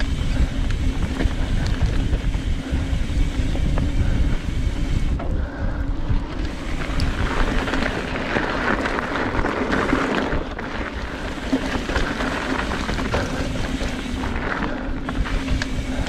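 Trek Fuel EX 7 mountain bike ridden along a dirt trail: tyre rumble and bike rattle under steady wind buffeting on the helmet camera's microphone, with a faint steady hum.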